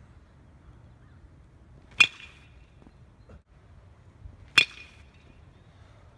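Two sharp pings of a metal baseball bat hitting a ball, about two and a half seconds apart, each with a short metallic ring.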